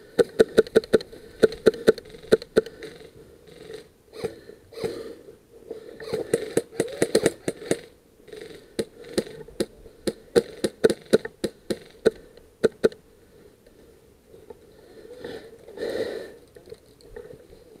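Airsoft BBs striking the large barricade in several volleys of sharp, irregular clacks that ring at the same pitch, densest at the start and again in the middle, then dying away after about two-thirds of the way through.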